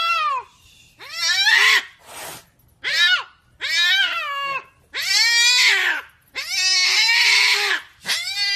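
Cat meowing over and over, about seven rising-and-falling calls. The later ones are longer and rougher, drawn out into yowls.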